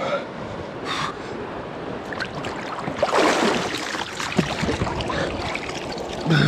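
River water splashing as a person dunks into a cold, shallow river, with one larger splash about three seconds in over the steady rush of the stream. Two short gasps of breath come near the start.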